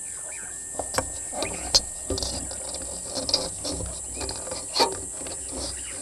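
Knocks, taps and scratchy rustling from a vervet monkey handling the camera right at the microphone, with the sharpest knocks about two seconds in and again near the end, over a steady high hiss.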